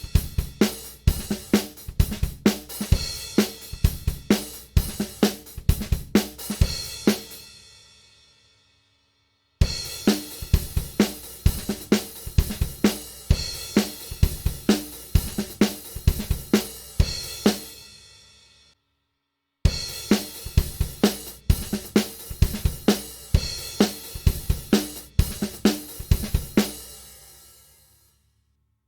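Sampled acoustic drum kit from the Stigmatized Drummer Kontakt library playing three short grooves of kick, snare, hi-hat and cymbals. Each groove stops after about eight or nine seconds and fades out in a cymbal ring, with a brief silence before the next one starts.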